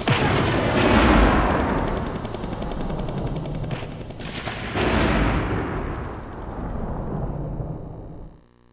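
Synthesized blast sound effects from a karaoke machine's Roland SC-55 sound module: a heavy artillery-like boom at the start and another about five seconds in, each a burst of noise with a long rumbling fade.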